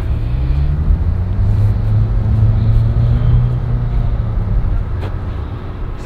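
A motor vehicle's engine with a low hum. It rises a little in pitch over the first second, holds steady, and fades toward the end.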